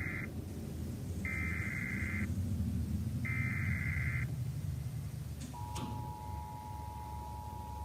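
Emergency Alert System SAME header: three one-second bursts of buzzy digital data tones, one second apart, carrying the coded flood-warning alert. About five and a half seconds in, after a brief click, the steady two-tone EAS attention signal begins, over a low background rumble.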